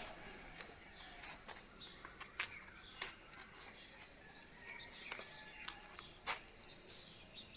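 Crickets chirping: a steady, high, rapidly pulsing trill, with a few faint clicks and knocks.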